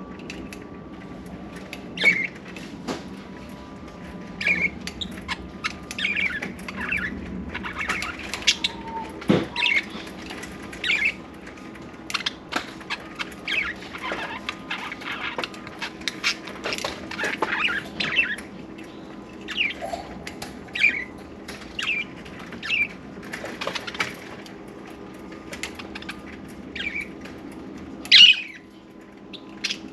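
Budgerigars chirping in many short calls, with wing flapping, over a faint steady hum.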